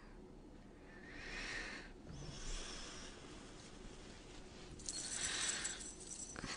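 A woman's soft breaths and sighs as she stirs awake, with a light metallic jingle starting about five seconds in.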